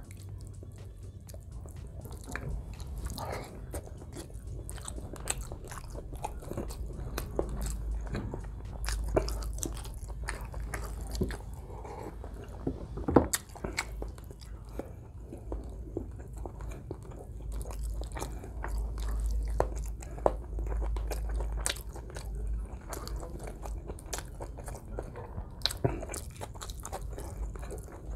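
Close-miked chewing of a person eating rice and meat by hand: continuous mouth sounds with many short wet clicks.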